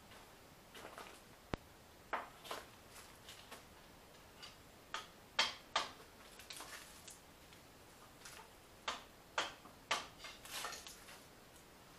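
Footsteps crunching on gravel at an uneven walking pace, with a single sharp click about a second and a half in.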